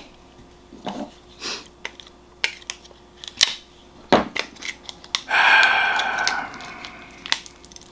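Scattered light clicks and taps from handling a vinyl toy figure and its packaging, then about five seconds in a man's long, heavy sigh.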